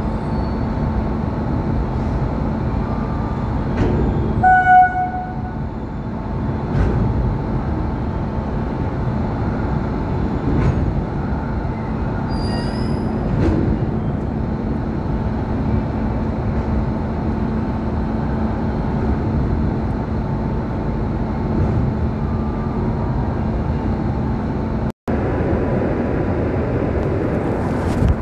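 Electric locomotive hauling a passenger train out of the station, its machinery giving a steady hum, with a short horn toot about four and a half seconds in. Near the end the sound turns to the rumble of coaches rolling past close by.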